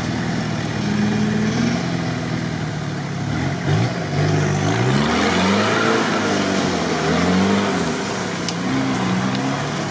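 Modified UAZ-469 engine revving up and down repeatedly under load as it pushes through deep mud on big mud tyres, with the tyres churning and slopping through the mud.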